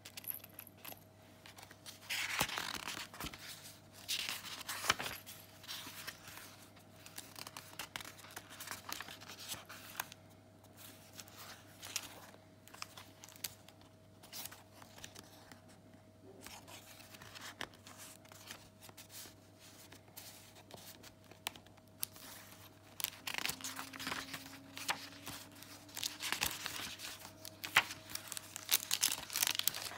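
Thick paper and card pages of a handmade junk journal being turned by hand, rustling and crinkling. It is loudest about two and four seconds in and through the last several seconds.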